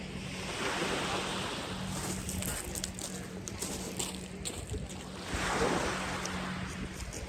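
Surf washing onto the beach with wind buffeting the microphone, the wash swelling twice, about a second in and again near the end, with a few faint clicks in between.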